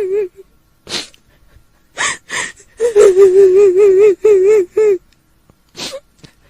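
A woman's voice crying as a kuntilanak ghost: sharp gasping sobs, then one long, quavering wail about three seconds in, followed by another gasp.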